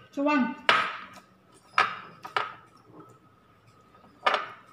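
Chopsticks clinking against porcelain rice bowls while eating: about four sharp, separate clinks, each with a brief ring.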